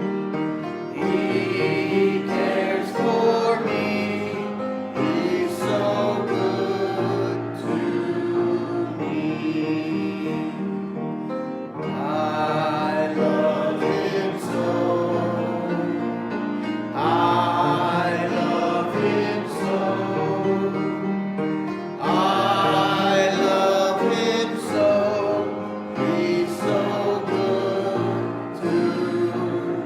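A group of voices singing a gospel worship chorus in phrases of a few seconds, over steady instrumental accompaniment.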